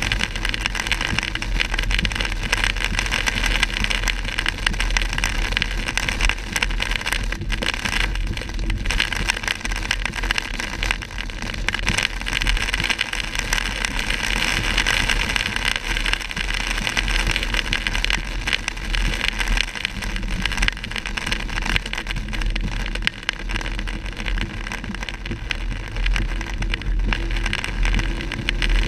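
Car driving through heavy rain on a wet road, heard from inside the cabin: a steady noise of tyres on wet pavement and rain over a low rumble.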